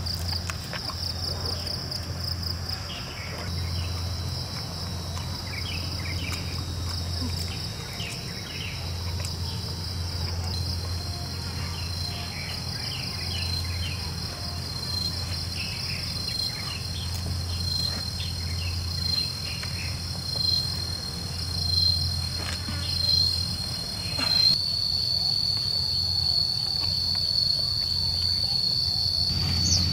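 Steady high-pitched chorus of forest insects, pulsing rapidly, with a thin steady whine just beneath it. The chorus changes abruptly a few times, most sharply about three quarters of the way through.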